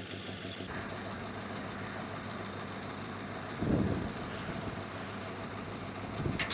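Engine idling steadily, a low even hum, with a brief louder swell about three and a half seconds in.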